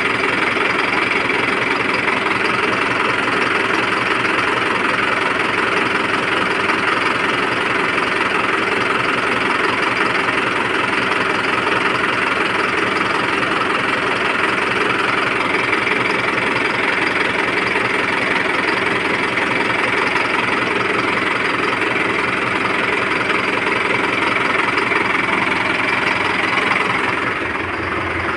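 Mahindra Arjun 555 DI tractor's diesel engine running at a steady speed, heard close up at the engine while its injection pump speed linkage is being adjusted.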